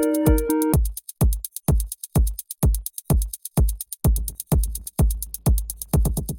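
Electronic beat from a drum machine. A synth melody cuts off under a second in, leaving a steady kick drum and fast hi-hat ticks, and a low bass comes in under the kicks about four seconds in.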